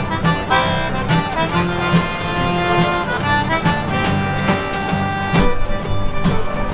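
Cajun jam session: a fiddle, strummed acoustic guitars and a Cajun button accordion playing a tune together with a steady beat.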